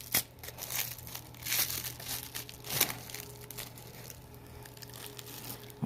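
Wrapping being crinkled and pulled off an item in irregular bursts, busiest in the first few seconds, then fainter.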